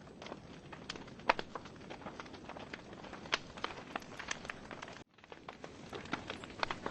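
Wood fire crackling in a fireplace: irregular snaps and pops of burning logs over a low steady hiss. About five seconds in, the sound cuts out abruptly for a moment, then comes back.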